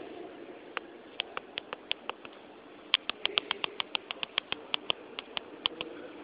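Low steady hum inside a moving metro car, with a run of sharp clicks: a few scattered ones, then about five to seven a second from about halfway through.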